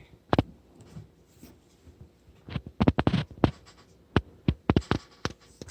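Plastic toy packaging being handled and opened by hand: about ten separate sharp clicks with light scratching, most of them in the second half.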